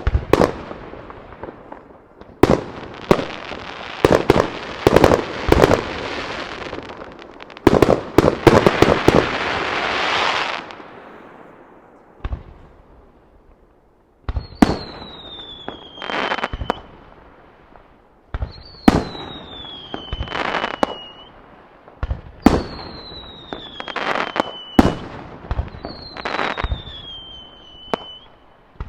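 Aerial firework shells launching and bursting, with booms that echo off nearby buildings. Through the first half a dense crackling follows the bursts. In the second half the same pattern comes four times, about every three and a half seconds: a bang, a whistle falling in pitch for about two seconds, then the shell's burst.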